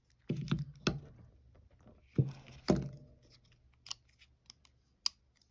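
Spyderco Para 3 folding knife being opened and closed by hand to test its action: a series of clicks and knocks with some scraping of the blade. The blade moves stiffly because the pivot is screwed very tight.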